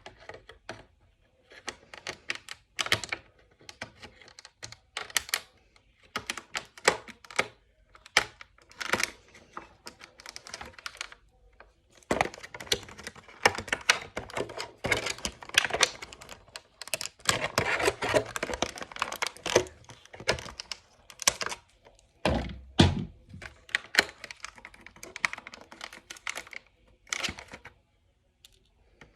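Hands working at a toy's plastic packaging: irregular clicks, taps and crinkles of hard plastic being handled and pulled apart, densest in the middle, with a dull thump about three quarters of the way through.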